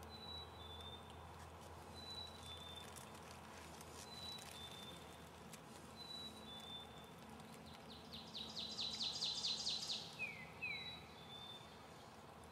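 Songbirds singing over a quiet outdoor background: a high two-note whistle, the second note lower, repeated about every two seconds. A louder rapid trill lasts about two seconds near the end and is followed by two quick falling notes.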